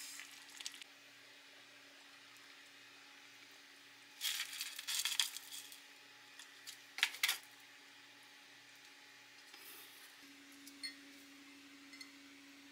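Light metallic clinks of utensils against cookware, in two short clusters in the middle, over a quiet background with a faint steady hum.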